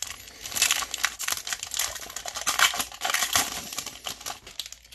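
Foil wrapper of a 2020 Bowman baseball card pack crinkling and crackling as it is handled and opened, a dense run of small irregular crackles.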